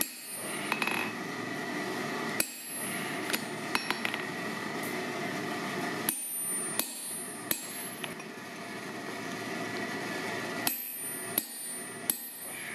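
Hand-hammer blows driving a hot punch through a red-hot hammer-head blank of forklift-tine steel on an anvil, punching the eye hole. The blows are sharp metallic strikes with a brief ring, irregularly spaced, with two runs of three quick blows a little under a second apart. A steady hum runs underneath.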